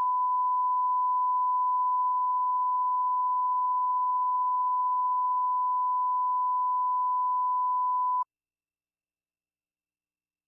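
Steady 1 kHz line-up test tone that accompanies colour bars, a single pure pitch held for about eight seconds and then cut off suddenly.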